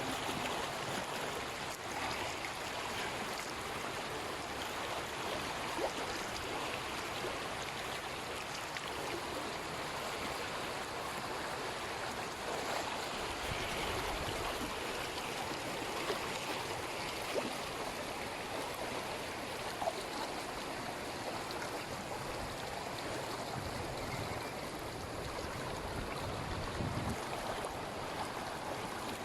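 Floodwater flowing, a steady continuous rush, with a few faint clicks and occasional low rumbles in the second half.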